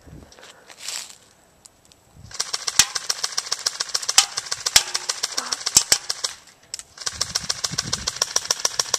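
Electric M4 airsoft rifle firing on full auto: a rapid, even string of shots over the whirr of its motor and gearbox, in two long bursts, the first about four seconds and the second about two.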